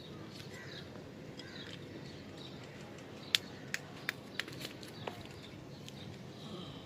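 A handful of sharp plastic clicks and taps from MC4 solar connectors being handled and tightened, bunched together about halfway through, over faint bird chirps.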